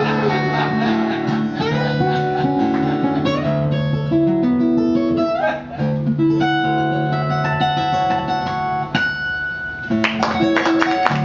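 Acoustic guitar played fingerstyle: held notes ringing over a low bass, with a brief gap about two thirds of the way through, then final chords struck near the end as the piece closes.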